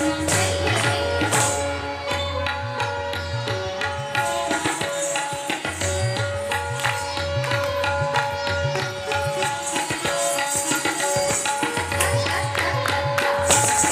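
Kathak teentaal accompaniment: tabla playing a steady, even rhythm with deep bass-drum strokes, under a repeating melodic line held on long notes.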